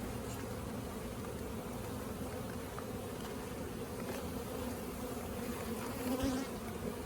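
Many honeybees buzzing around an open hive, a steady low hum that swells briefly about six seconds in.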